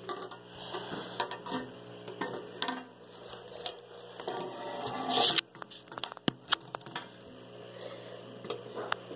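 Scattered clicks, taps and rustles of small objects and a phone being handled on a tabletop, with a louder rustle about five seconds in that cuts off sharply. A faint steady low hum runs underneath.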